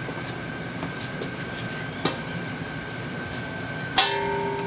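Steady low rumble with a few light clicks, then about four seconds in a sharp metallic clang from the steel square-tube frame, ringing on in two clear tones for about a second.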